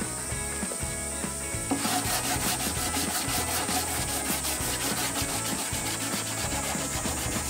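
Sandpaper rubbed by hand back and forth over a wooden tabletop, starting about two seconds in as a quick even rasping of about four to five strokes a second, smoothing the bare wood before painting. Background music plays underneath.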